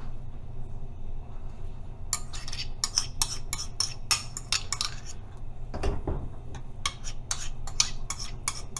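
A spoon scraping and clinking against a ceramic bowl, working thickened gelatin out of it into a saucepan: quick repeated clinks start about two seconds in, with a dull knock about six seconds in.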